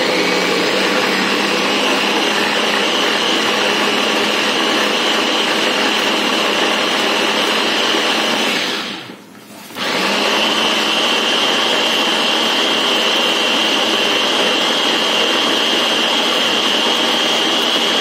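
Small electric mini chopper with a push-down top running steadily with a whine, chopping onions for a spice paste. It stops for about a second halfway through, then runs again.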